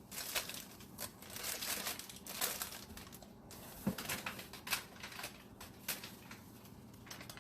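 Packaging crinkling and rustling as groceries are handled and lifted out of a delivery box, in a series of short, irregular crackles and rustles.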